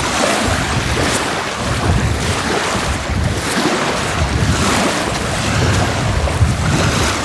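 Small waves washing on a lagoon shore, with wind rumbling on the microphone in uneven gusts.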